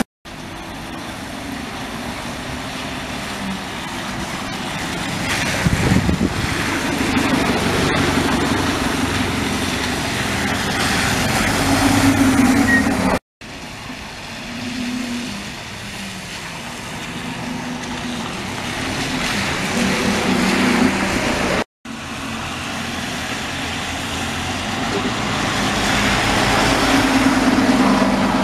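Single-deck bus engines running as buses pull in and pass close by, the engine note swelling and rising as each one accelerates. The sound breaks off abruptly twice, where separate clips are joined.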